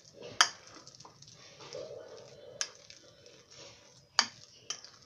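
A spoon stirring a thick, stiff grated-vegetable batter in a bowl: soft squelching and scraping, with four sharp clinks of the spoon against the bowl, the loudest about half a second in.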